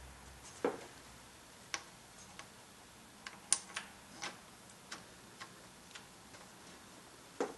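About ten light metallic clicks and taps at irregular intervals, from a socket tool on an extension being fitted onto a thermostat housing nut by hand.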